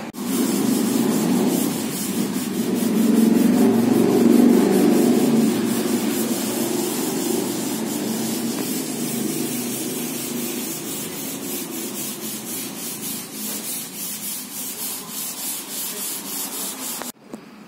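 Rough noise on the camera's microphone as it is carried along, loudest in the first few seconds and then pulsing about twice a second. It cuts off suddenly near the end.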